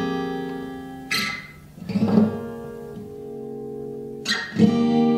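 Acoustic guitar chords struck and left to ring out: a new chord about a second in, another about two seconds in, and two more close together near the end, each fading between strokes.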